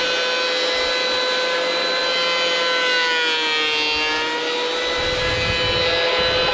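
Electric woodworking machine running with a steady high whine. Its pitch sags briefly about three and a half seconds in, as if taking load, and a rough low rumble joins near the end as wood goes through.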